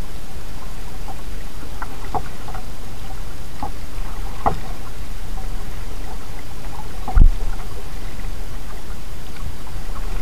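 Kayak drifting in still creek water: scattered small drips and ticks of water at the hull over a steady low rumble, with one dull knock on the kayak about seven seconds in.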